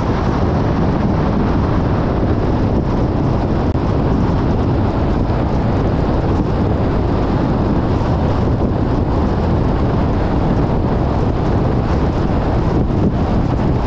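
Steady road and wind noise from a car driving at speed: a constant low rumble of tyres on the road mixed with rushing wind, with no change in level.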